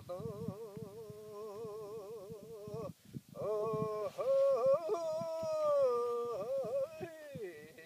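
A voice singing long held notes with a wide, even vibrato, breaking off briefly about three seconds in, then going on in sliding, ornamented phrases that drop away near the end.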